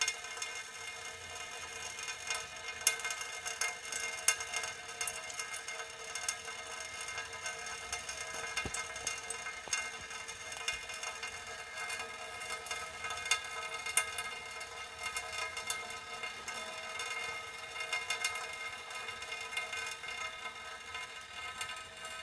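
Water drops falling irregularly onto a metal utensil, each drop a sharp tick, over the metal's steady ringing tones.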